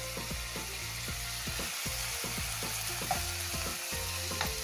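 Sliced onions and greens sizzling in a wok over a gas burner as they are sautéed, with a metal ladle scraping and tapping against the pan again and again as it stirs them.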